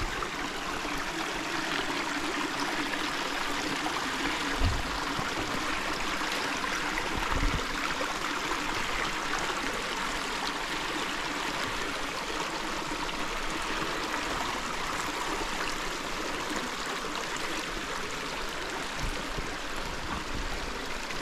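A small woodland stream running over rocks, giving a steady rushing, trickling sound. Two dull thumps come about five and seven seconds in.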